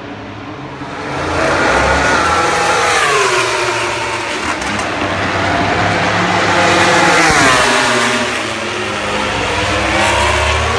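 MotoGP racing motorcycles running on the circuit: high-revving engine notes that fall in pitch about two to three seconds in, drop steeply again about seven seconds in, then rise near the end.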